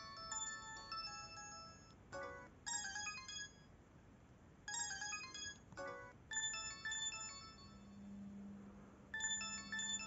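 Samsung SGH-E250 mobile phone playing its built-in ringtone melodies as short previews, one tune after another, each cut off after a second or so as the next one starts. A low steady hum comes in during the last two seconds.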